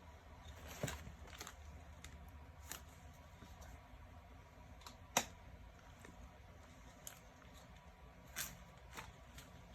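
A few light, scattered clicks and knocks of plastic parts being handled and fitted on a folding portable toilet chair, the sharpest about halfway through, over a faint low hum.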